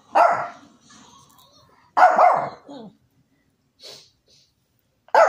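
Shih Tzu barking at a treat ball stuck in a basket: one bark at the start, another about two seconds in, and a third just at the end.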